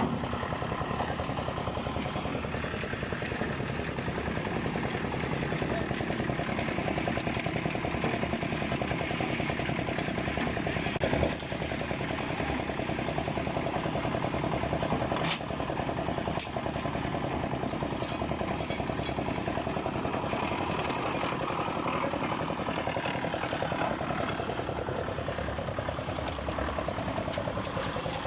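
An engine running steadily at a constant speed, with a couple of brief sharp knocks about 11 and 15 seconds in.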